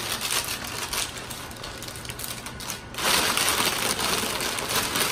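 Plastic mailer bag crinkling and rustling as it is pulled and torn open by hand, getting louder about three seconds in.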